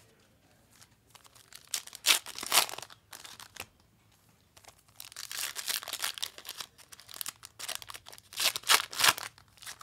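Plastic wrapping on sports card packaging being torn open and crumpled, in spells of ripping about two seconds in, around five to six seconds, and near the end.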